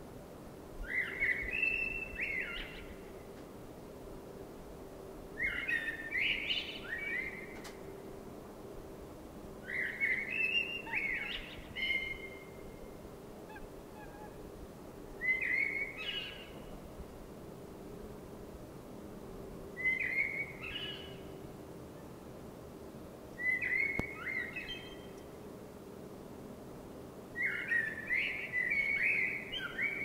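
Eurasian blackbird singing: seven song phrases, each a second or two long, with pauses of a few seconds between them.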